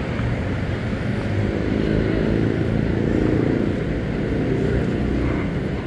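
Street traffic noise: a steady low rumble with a vehicle engine running, growing a little louder toward the middle and easing off again.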